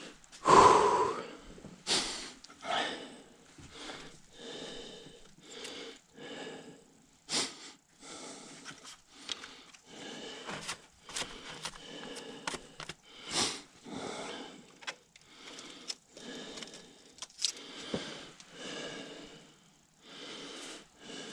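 A person breathing hard in a steady rhythm while straining at the work, with a few sharp metallic clinks of tools or engine parts.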